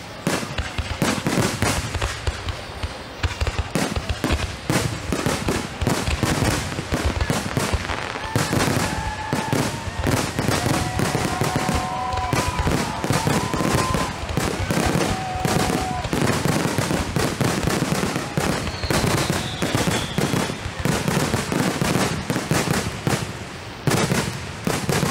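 Aerial fireworks going off in a dense, continuous barrage of overlapping bangs and crackles, with a few short whistling tones mixed in about a third of the way through and a brief let-up near the end.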